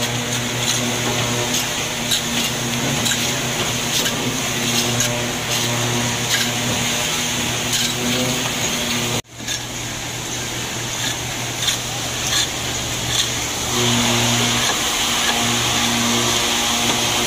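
Irregular scraping and knocking of hand scrapers chipping barnacle crust off a steel ship's propeller shaft and hull, over a steady machine drone. The sound cuts out briefly about nine seconds in.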